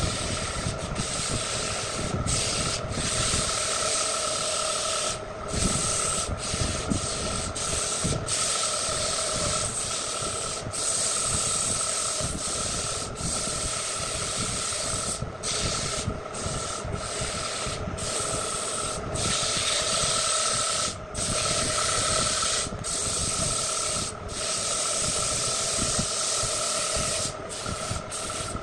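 Sandpaper held by hand against a wood turning spinning on a lathe: a continuous rushing hiss, broken by many brief gaps, over the steady tone of the running lathe.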